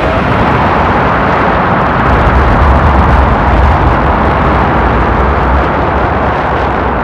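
Rocket engines firing at liftoff: a loud, steady rush of noise over a deep rumble.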